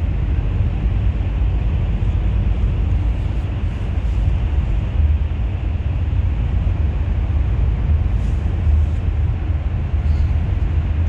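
Bus running along the road: a steady low rumble of engine and tyre noise with no change in pace.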